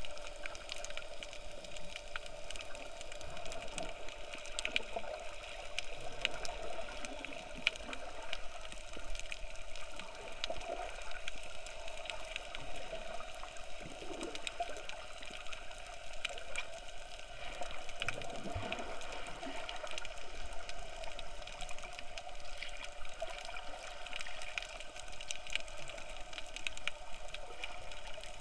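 Underwater ambience picked up by an action camera in its waterproof case: a steady hum with a constant crackle of faint clicks, and a few low sweeping sounds now and then.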